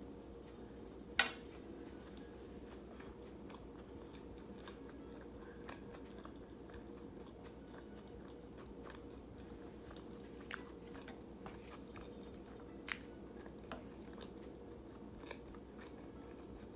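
A person chewing food close to the microphone, faint and steady, with a handful of sharp mouth clicks scattered through. The loudest click comes about a second in.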